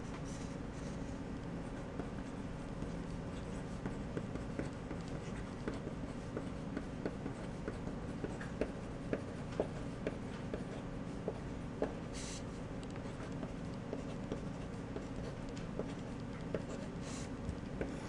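Staedtler Graphite 760 mechanical pencil's 0.5 mm HB lead writing letters on paper: a run of small taps and scratches, one per pen stroke, with two longer scrapes in the second half, the last as a line is drawn near the end.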